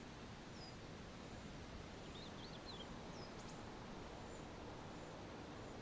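Quiet outdoor ambience: a steady low hiss with a few short, high bird chirps, about half a second in, around two seconds in and again just past three seconds.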